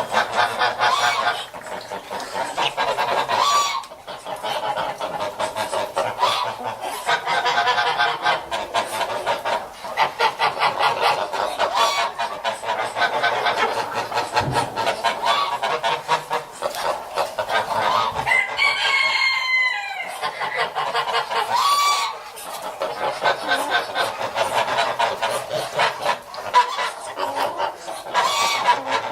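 A flock of geese honking and cackling, many calls overlapping without a break, with one louder rising call about two-thirds of the way through.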